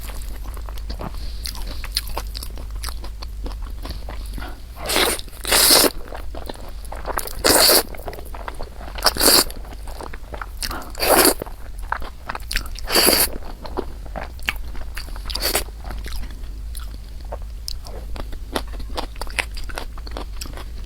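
Close-miked eating: a constant run of small wet mouth clicks from chewing, with seven louder short bites or mouthfuls spaced about two seconds apart in the middle stretch, over a low steady hum.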